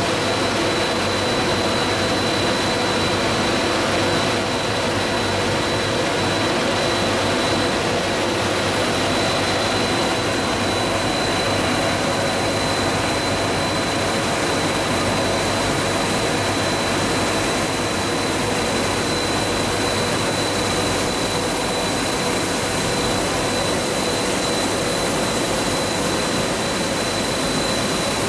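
Coil car mat production line running: a steady, even roar of electric motors and machinery, with a thin constant high whine over it.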